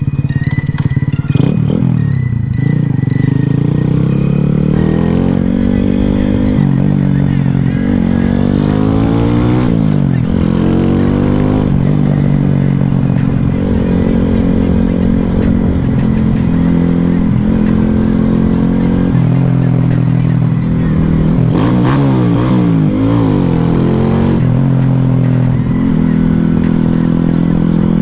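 Single-cylinder engine of a 2021 Boom Vader Grom-clone minibike, fitted with a 141 cc big-bore kit and Nibbi carburettor, running under way. Its pitch climbs and drops several times as the throttle is opened and closed.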